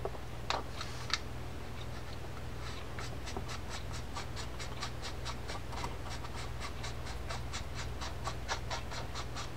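Light, rapid clicking, about four clicks a second, as the adjuster is turned by hand onto the side plate of a D.A.M. Quick spinning reel, with a couple of single clicks from handling the part before it.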